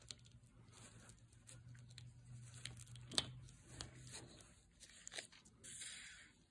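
Faint rustling and crinkling of paper towel handled with gloved hands, with scattered small crackles and clicks and a brief louder rustle near the end. A low steady hum stops about four seconds in.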